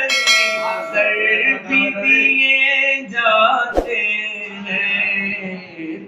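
A man singing a naat solo, with long held, wavering notes. Right at the start a sharp click and a bright ringing ding that fades over about a second, and another sharp click about four seconds in, from a subscribe-button overlay.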